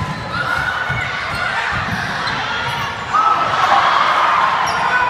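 Indoor volleyball rally on a hardwood gym floor: sneakers squeaking in short pitched squeals, with the thuds of ball contacts and footfalls. Crowd voices run under it and grow louder about three seconds in.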